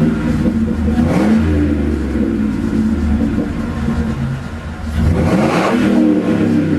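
An engine running steadily and revving twice, its pitch rising and falling about a second in and again about five seconds in.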